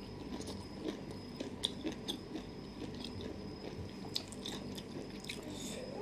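A person chewing a mouthful of som tam (green papaya salad) with glass noodles and seafood: quiet wet chewing with small, irregular mouth clicks and crunches.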